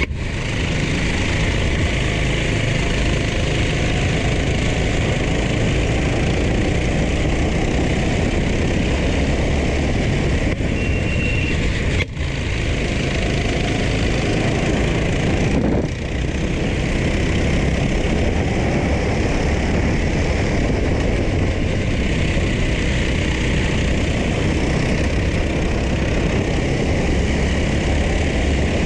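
Go-kart engine running hard at racing speed, heard from on board the kart with wind rushing over the microphone. The loudness dips briefly twice, about 12 and 16 seconds in.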